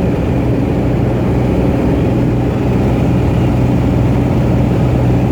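Cessna 210 Centurion's piston engine and propeller running steadily, an even drone with no change in pitch.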